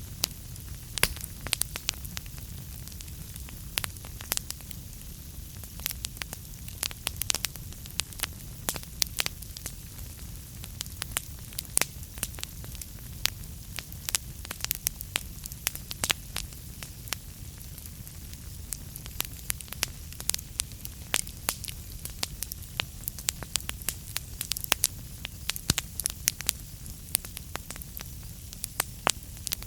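Wood fire crackling in a fireplace: frequent irregular sharp pops and snaps of burning logs over a steady low rumble of the flames.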